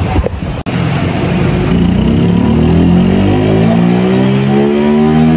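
Motorcycle engine on a chassis dyno making a power run: it runs low at first, then from about a second and a half in its pitch rises steadily as the revs climb under load.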